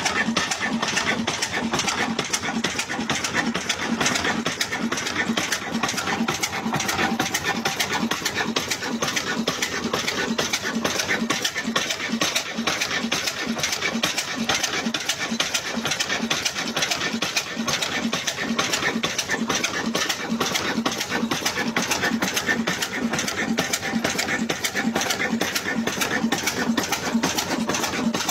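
Stationary engine running steadily at a constant speed, with a regular rhythmic beat, driving a belt-driven water pump.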